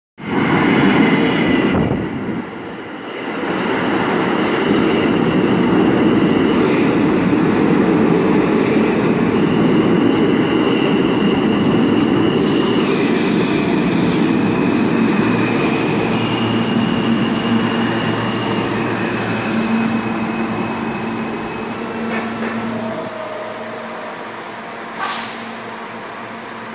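MTA R160 subway train pulling into an underground station and braking to a stop. Heavy rumble of steel wheels on rail is overlaid with high whining tones that step in pitch and some wheel squeal. It fades to a steadier hum as the train halts, with a short hiss near the end.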